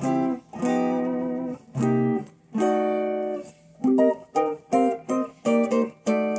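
Electric guitar strung with 9-gauge strings, its action just raised to cure a buzzy sound, played unaccompanied. First a few notes ring out about a second each, then from about halfway a quicker run of short picked notes, roughly two a second.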